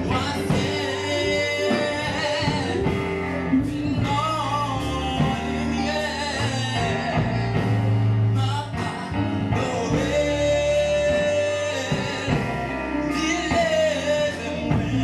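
A man singing a melody into a handheld microphone over instrumental accompaniment with a steady bass line.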